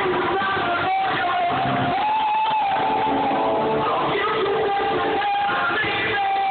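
A band playing live, with a singer's voice and guitar in the music; a long held, wavering note runs through it.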